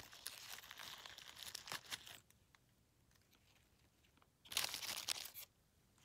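Dry fallen leaves rustling and crinkling close by as a hand reaches in and picks a black trumpet mushroom from the leaf litter. There are two bursts: about two seconds at the start, then a shorter, louder one near the end.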